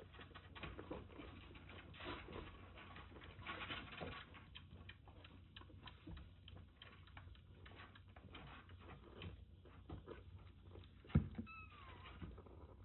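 Tabby kitten suckling milk from a nursing bottle: a run of small, faint clicking sucks. Near the end comes a sharp knock, then a short high meow that falls in pitch.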